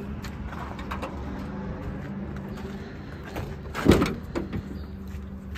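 Tata 407 Gold's 3000 cc four-cylinder diesel engine idling steadily, with a sharp metal clunk about four seconds in and a smaller one just after.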